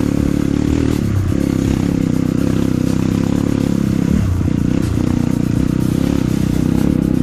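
Honda CRF150L trail bike's single-cylinder four-stroke engine running under way on a rough dirt track, its note dipping briefly a few times, with rattle from the bike over the stony ground.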